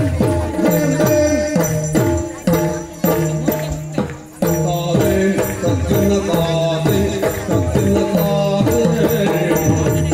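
Yakshagana accompaniment music: rapid hand-drum strokes that bend down in pitch, over a steady drone and a high metallic ringing, with a brief lull about four seconds in.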